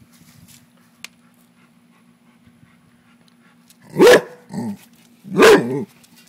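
A Rottweiler barks twice, loud and about a second and a half apart, after a few quiet seconds. She is barking at a frog.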